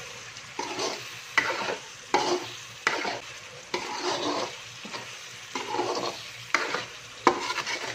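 A metal slotted spatula scraping and stirring through a kadai in strokes roughly every three-quarters of a second, each stroke followed by the sizzle of chicken and powdered spices frying in oil: the masala being sautéed (bhuna).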